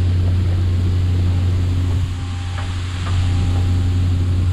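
A fishing boat's engine running with a steady low drone, under an even hiss of water spray hitting the sea beside the hull.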